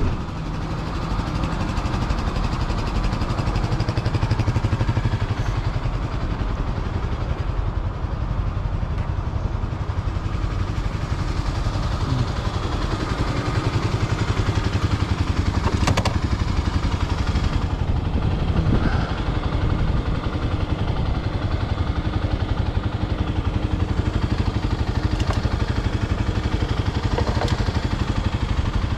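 Kawasaki KLX300 dual-sport motorcycle's single-cylinder engine idling steadily.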